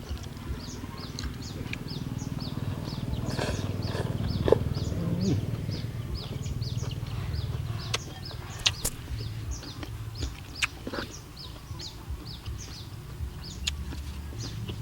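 Small animals chirping steadily: short high chirps repeating about three times a second, over a low rumble, with a few sharp clicks.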